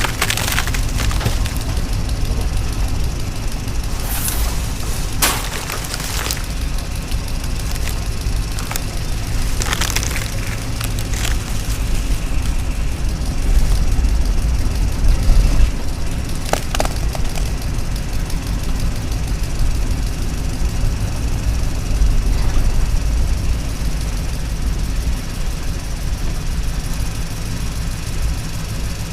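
Radio-controlled toy excavator running: a steady low rumble with a few sharp clicks and knocks as it works.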